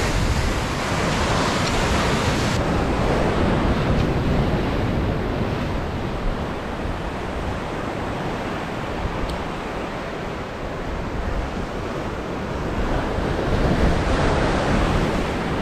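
Ocean surf breaking and washing over the rocks of the shoreline, a steady rush that swells louder near the end as a bigger set surges in.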